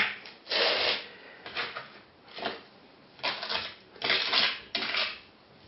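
A trowel scraping and spreading tile adhesive into the tile bed: several short scraping strokes with pauses between them.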